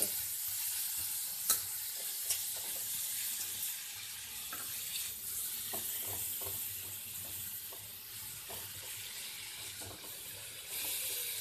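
Grated white radish and spices frying in hot oil in a kadhai, with a steady sizzle. A metal slotted spoon stirs and presses the mixture, giving scattered scrapes and taps.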